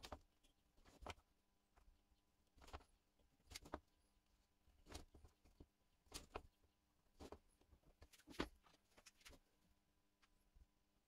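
Faint, scattered knocks and taps, about one a second, as small plywood pieces, a wooden jig and a pencil are handled and set down on a hard wooden surface.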